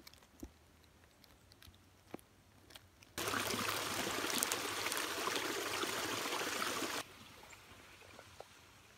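Small woodland stream trickling, a steady rush of running water that cuts in suddenly about three seconds in and cuts off just as suddenly about four seconds later. A few faint ticks before it, otherwise near quiet.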